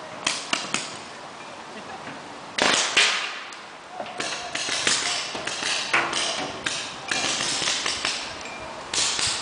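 Paintball markers firing: sharp pops in uneven volleys, the loudest cluster a little under three seconds in.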